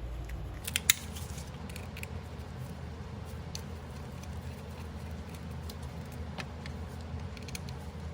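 Small metallic clicks of a screwdriver and tiny screws as the hard drive's retaining screws are taken out of a 2012 MacBook Pro: a sharp pair of clicks about a second in, then a few fainter ones scattered through, over a steady low hum.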